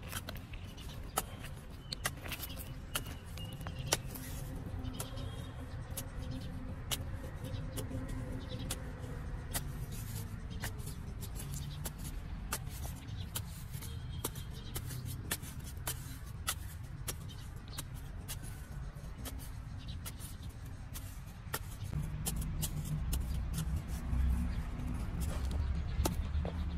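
A metal digging bar striking and scraping into hard, dry, cracked soil, making a long run of irregular sharp clicks and knocks. Under it runs a low rumble that grows louder near the end.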